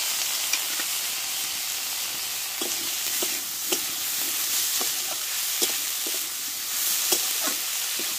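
Moringa (drumstick) flowers and green peas sizzling in hot mustard oil in a metal kadai, with a steady hiss. A metal spatula scrapes and knocks against the pan every half second or so as it stirs, from about two seconds in.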